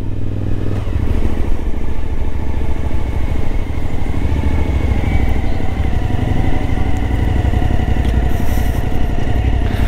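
Suzuki V-Strom 1050XT's V-twin engine running steadily as the motorcycle rides slowly onto the ferry's vehicle deck.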